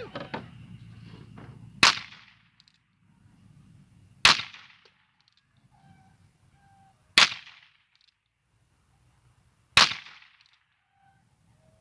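.22 LR revolver firing four single shots, about two and a half seconds apart, each a sharp crack with a short echo. The rounds had been soaked in water and still fire.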